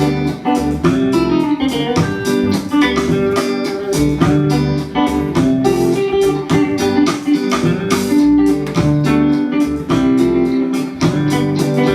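Instrumental guitar music: quickly picked guitar notes over a steady bass line.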